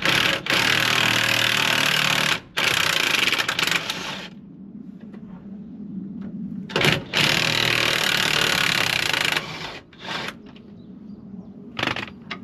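Impact gun hammering on rusted, seized bolts to break them loose, in three bursts of about two seconds each with short blips between.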